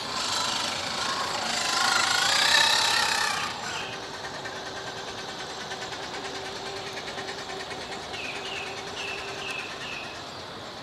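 Electric motor and gear drivetrain of an Axial SCX10 III RC crawler whining. The pitch rises and falls with the throttle, loudest in the first few seconds. It then settles to a quieter, steadier whine with a fast rhythmic ticking.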